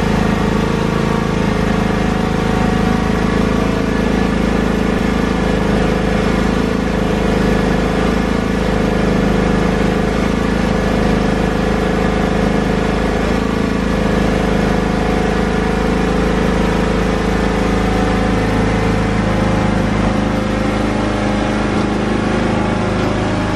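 Riding lawn tractor's small engine running steadily under load while towing a car off a trailer.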